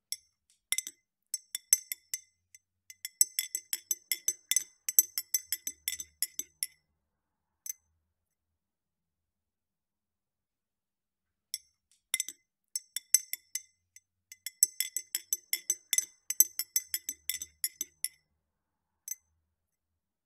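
Metal spoon stirring in a ridged drinking glass, clinking rapidly against the glass sides. It comes in two bouts of about six seconds each, with a pause of a few seconds between them and a few single clinks.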